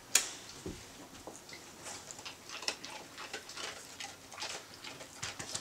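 A dog moving about and playing after being told to get something: irregular light clicks and taps, with one sharp click right at the start.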